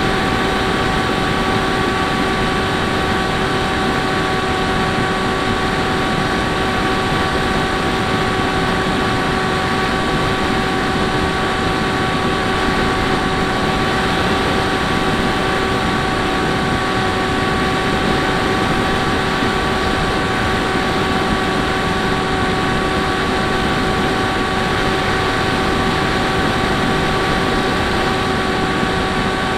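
Electric motor and propeller of an FPV Raptor RC plane whining at one steady pitch at cruise throttle, heard from its onboard camera along with constant airflow rush.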